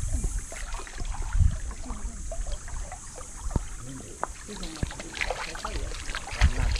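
Shallow water sloshing and splashing, with scattered small knocks, as people wade and feel under rocks in a river. Faint voices are heard in the second half.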